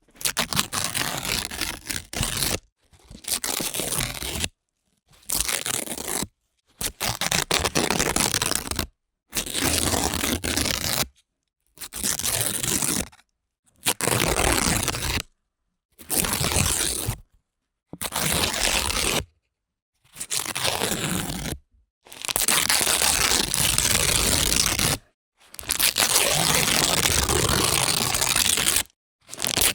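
Paper being torn, about a dozen separate rips of one to three seconds each, with dead silence between them; the last two rips are the longest.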